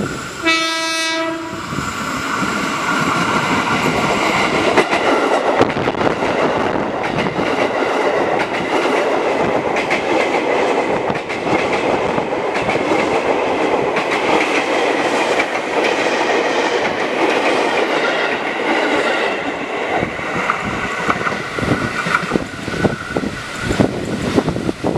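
JR 205 series electric commuter train sounding one short horn blast about half a second in, then running past close by: a loud, steady rush of wheels on rail with repeated clacks over the rail joints.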